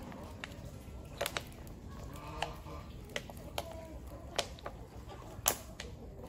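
Chickens clucking in the background, with a scattering of sharp pops and clicks, the loudest about five and a half seconds in.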